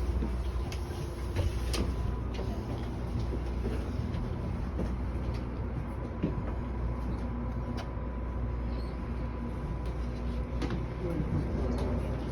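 Amtrak passenger train standing at the platform with its engine running: a steady low rumble with a faint steady whine above it, and scattered clicks and knocks.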